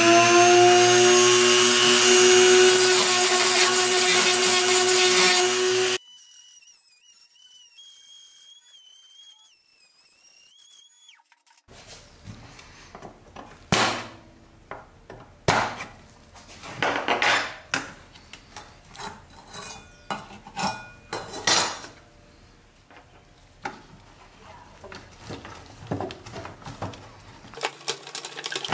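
A handheld rotary tool runs at high, steady speed against the steel underside of a 1965 Nylint Bronco toy, then cuts off suddenly about six seconds in. After a quiet spell come scattered sharp clicks and scrapes of a hand tool prying at the pressed-steel chassis while the axle is worked loose.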